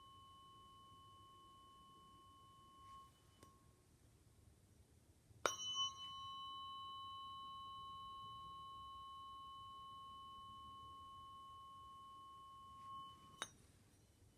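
Tuning fork ringing with a steady high tone and fainter overtones, which dies away about three seconds in. About five seconds in, a fork is struck with a sharp tap; it rings steadily for about eight seconds and is then stopped short.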